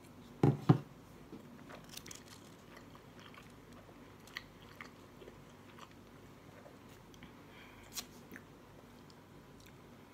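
A mouthful of cheeseburger being chewed, with faint scattered wet clicks and smacks, after two dull thumps about half a second in.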